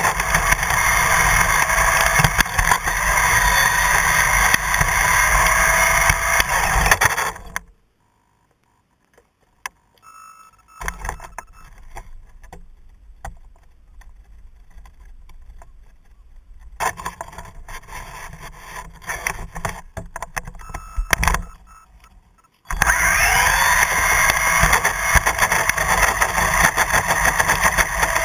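Onboard sound of a radio-controlled car driving fast on tarmac: its motor's whine rises and falls with the throttle over loud road and wind noise. Nearly eight seconds in it cuts to near silence, then to soft knocks and rubbing from the camera being handled. The driving sound returns about 23 seconds in with a rising whine.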